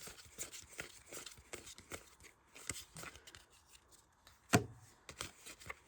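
Trading cards being handled and laid down onto piles: soft scattered taps and card rustle, with one sharper tap about four and a half seconds in.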